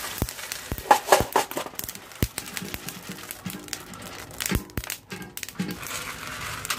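Freshly roasted coffee beans pouring out of a manual roasting drum and clattering into a stainless steel tray, an irregular run of sharp clicks and crackles. Faint music plays underneath.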